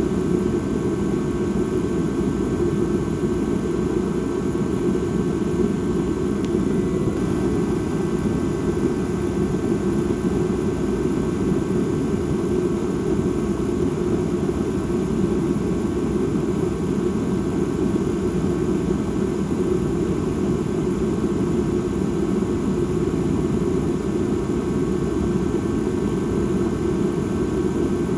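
Dark ambient drone sound: a steady, low rumbling hum with a few faint high tones held above it, unchanging throughout.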